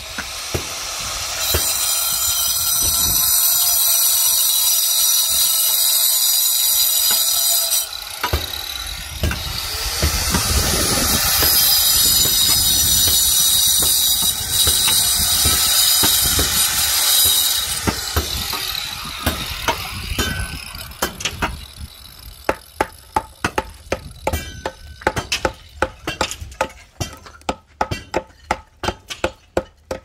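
Angle grinder cutting into a concrete block wall, scoring out the opening for an electrical box. It runs loud with a high whine in two long cuts, with a short break about eight seconds in, and winds down about twenty seconds in. From about twenty-two seconds on, a hammer strikes the block repeatedly, about two blows a second, to knock out the scored piece.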